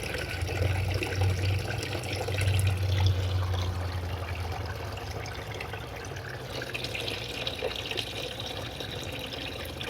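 Water running and trickling steadily through an aquaponics system's plumbing and tank, no longer gurgling now that the air has been pushed out of the siphon line. A low hum sounds under it for the first few seconds.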